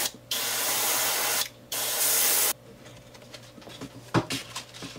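Airbrush spraying paint in short bursts of hiss with brief stops between, cutting off about two and a half seconds in. Quieter handling sounds follow, with one light knock about four seconds in.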